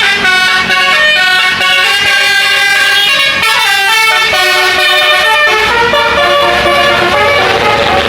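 Bus telolet horn playing a tune: a set of musical air horns sounding several notes at once and stepping from pitch to pitch every fraction of a second, without a break.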